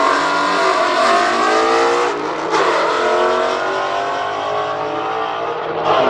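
Two cars, a red Ford Mustang and a blue BMW M4 coupe, accelerating hard down a drag strip. Their engines rise in pitch through the gears, with gear changes a little after two seconds in.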